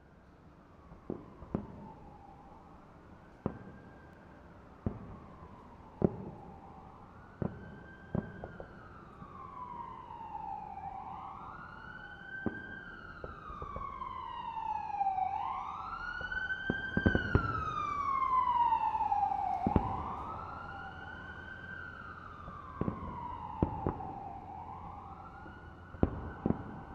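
An emergency vehicle siren wailing, its pitch sweeping up and down about every four seconds. It grows louder toward the middle and then fades. A dozen or so sharp clicks cut in at irregular moments.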